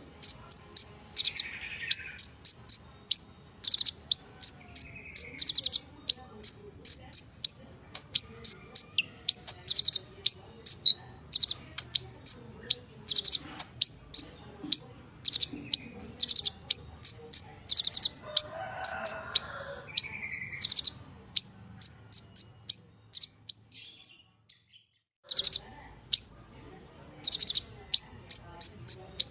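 Purple-throated sunbird singing energetically: a fast stream of thin, very high chips and short slurred notes, broken again and again by harsh, buzzy trills. There is a brief pause about three-quarters of the way through.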